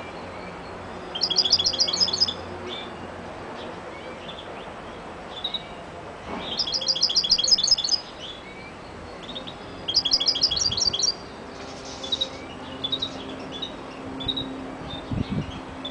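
European goldfinch singing: three bursts of fast, rapidly repeated high notes, each one to two seconds long, with short single chirps in between.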